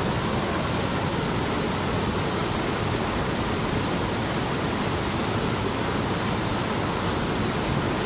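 Fast mountain stream rushing over boulders: a steady, unbroken rush of white water.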